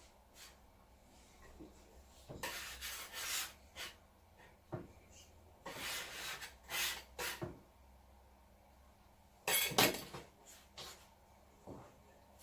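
A few short scraping and rubbing sounds of hands working and dividing fresh egg pasta dough.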